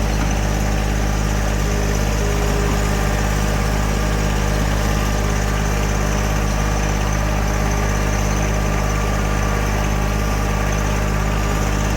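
Vehicle engine running steadily at a constant speed while driving a field during seeding and crimping, with an even low hum and no change in revs.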